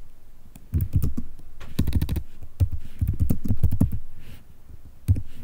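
Typing on a computer keyboard: runs of quick keystrokes, with a pause of about a second near the end before the clicking resumes.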